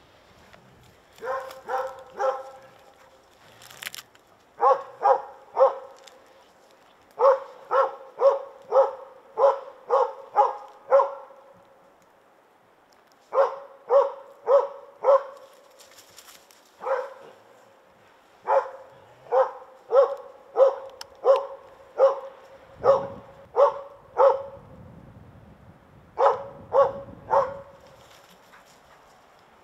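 Moose-hunting dog barking steadily in bouts of short, even barks, about two a second with brief pauses between bouts: the stand barking of a dog holding a moose at bay.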